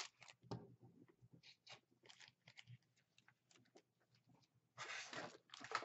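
Faint rustling and light taps of paper scrapbook cards being handled and moved aside on a table, with two louder rustles near the end.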